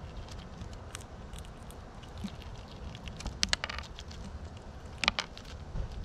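Squirrels scrabbling and handling food close to the camera: scattered sharp taps and scratches, with a quick run of clicks about three and a half seconds in and another about five seconds in, over a low steady rumble.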